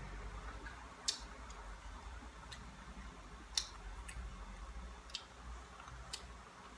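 Small, sharp clicks and ticks, about seven at uneven intervals, the loudest about a second in and near the middle, from someone chewing and peeling boiled bananas by hand.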